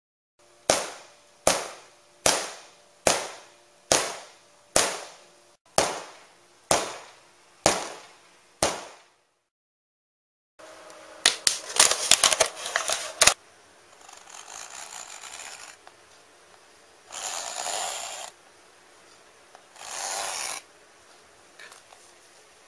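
A hammer strikes PVC fabric about ten times at an even pace, roughly one blow every 0.8 s, each with a brief ringing tail. After a pause, a knife blade jabs and scrapes against a thin plastic bottle in a quick cluster of clicks. Then comes scraping and rustling in three separate bouts.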